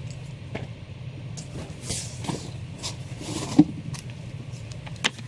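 Comic books being handled and sorted: short paper and plastic rustles, swishes and light clicks over a steady low hum, with one sharper knock about three and a half seconds in.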